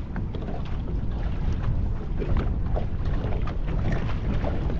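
Wind noise buffeting the microphone aboard a small aluminium boat, with choppy water slapping against the hull in short, irregular splashes.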